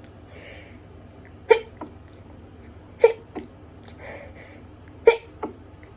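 Hay fever sneezing fit: three short, sharp sneezes about a second and a half apart, each followed by a smaller catch, with faint breaths between them.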